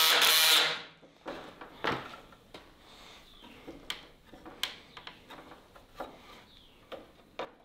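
Cordless drill driving a screw into oak runs and stops under a second in, followed by scattered light knocks and clicks of wood and tools being handled.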